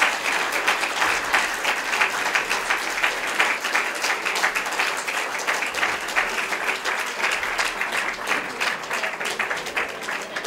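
Theatre audience applauding: a dense, steady clatter of many hands clapping that slowly fades.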